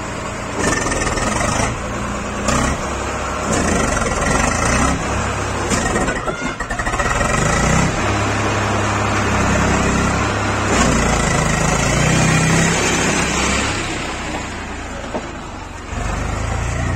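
Swaraj 735 FE tractor's three-cylinder diesel engine running under load as it pulls a trolley heaped with earth, its note rising and falling with the throttle, with a few brief knocks.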